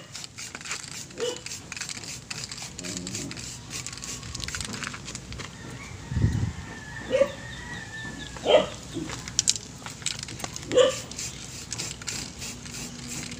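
A dog barking a few times: short single barks spaced a second or more apart, the loudest past the middle.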